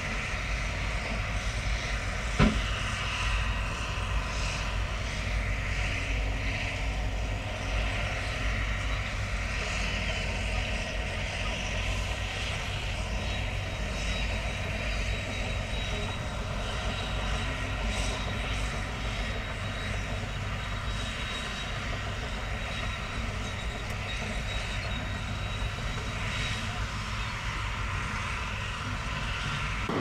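Heavy diesel engines of a tipping dump truck and a Komatsu bulldozer running steadily, with a low rumble and a noisy hiss above it. A single sharp knock comes about two and a half seconds in.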